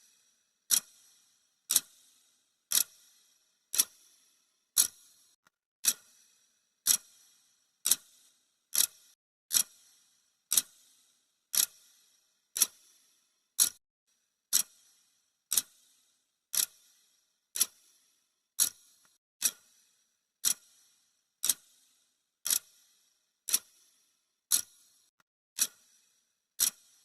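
Clock ticking sound effect: a sharp, even tick about once a second, each with a brief high ring that dies away quickly.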